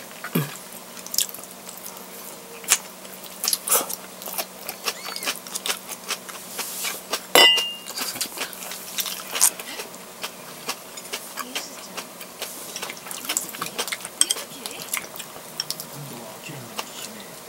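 A person eating with chopsticks from a ceramic rice bowl: chewing and mouth sounds with scattered light clicks of the utensils. About seven and a half seconds in comes a sharper clink with a brief ring. A faint steady hum runs underneath.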